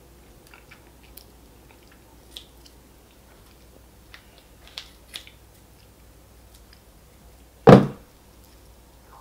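Kitchen scissors snipping at the membrane and shell of a cooked lobster tail: a few small, crisp snips and clicks. Near the end, a single loud clunk as the scissors are set down on the table.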